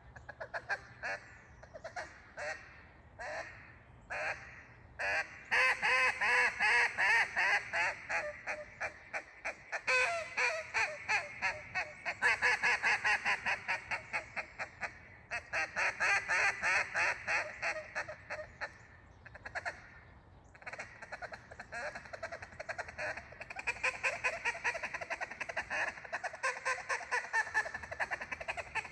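Acrylic Riceland Meat duck call blown as a quacking duck: a few spaced single quacks at first, then long fast runs of quacks, several a second, broken by short pauses.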